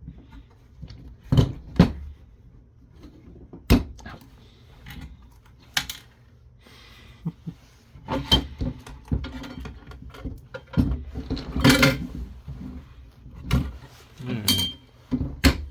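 Irregular clicks, knocks and metallic clatter of hand tools and small metal parts being handled while stuck screws are worked out of a point-of-sale terminal's metal case.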